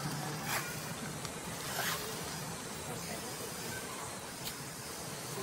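Steady outdoor hiss with three short, sharp crackles of dry leaf litter as macaques shift about on it.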